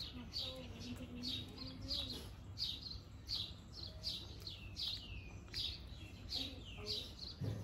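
A bird chirping over and over, short high chirps falling in pitch, about two or three a second and often in pairs.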